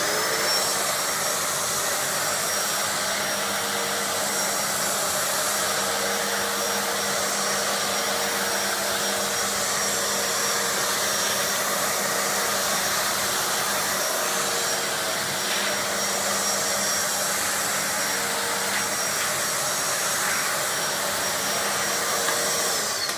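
Shop vac with a DIY cyclone separator bucket switched on, its motor coming up to speed with a high whine and then running steadily while the floor head sucks sawdust off the concrete floor. Near the end it is switched off and the whine falls as the motor spins down.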